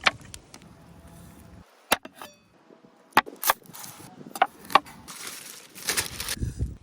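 Several sharp knocks at irregular spacing, like chopping, followed near the end by about a second and a half of hissing noise.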